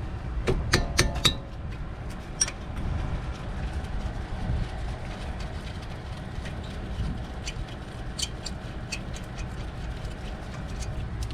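Scattered sharp metallic clicks and taps of hand tools working at the front brake caliper: a cluster in the first second and a half, then a few more near the end, over a steady low rumble.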